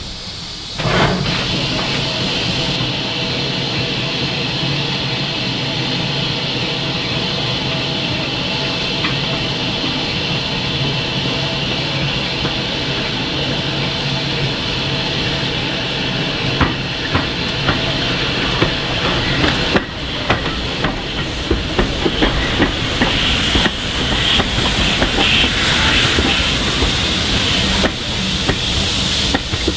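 A steam locomotive hisses steam steadily, with a low hum beneath. From about 20 seconds in, a train of coaches rolls past, its wheels clicking and knocking over the rail joints.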